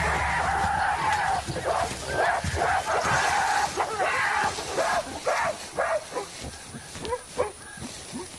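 Several mountain gorillas giving agitated calls as the group drives off a young male. The calls are many short, bark-like cries that rise and fall in pitch. They overlap densely for the first few seconds, then come singly and grow quieter toward the end.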